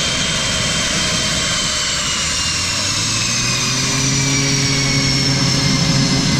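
Boeing F/A-18E Super Hornet's twin General Electric F414 turbofans whining at taxi power as the jet rolls past, the high whine sliding slowly down in pitch.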